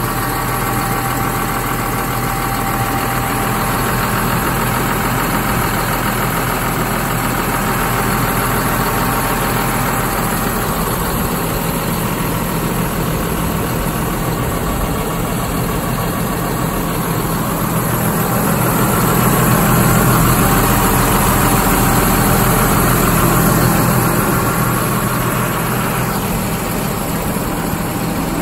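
Claas Arion 640 tractor's six-cylinder diesel engine idling steadily, growing a little louder for a few seconds past the middle.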